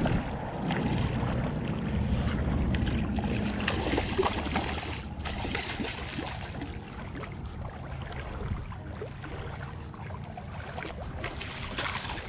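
A hooked snook splashing and thrashing at the surface of shallow water as it is reeled in, loudest in the first few seconds and weaker as it is drawn up onto the bank. A low rumble of wind on the microphone runs under it.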